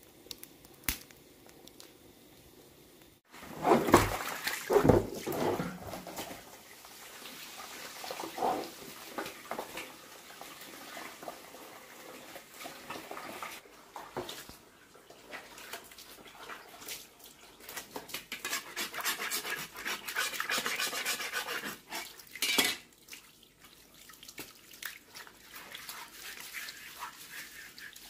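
Faint crackling of a wood fire, then a few loud sudden sounds about four seconds in. After that, water runs from a hose as a wooden chopping board is scrubbed by hand.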